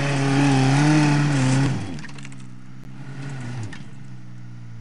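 Suzuki Samurai engine revving hard under load in low-range first gear as the 4x4 climbs out of a rut, its pitch wavering with the throttle. Near two seconds in it eases off to a lower, steadier running note that then fades.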